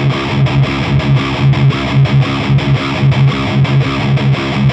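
Distorted electric guitar riff played through an Orange Rockerverb 100 MKIII valve amp head, a steady rhythm of chugging low notes. The amp's bass control is being turned up as it plays.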